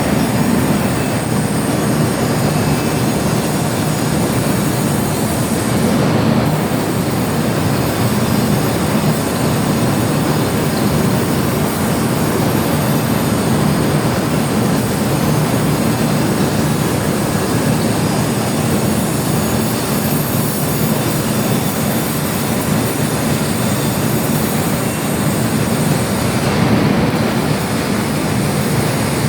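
Metal lathe running, its noise loud and unbroken throughout.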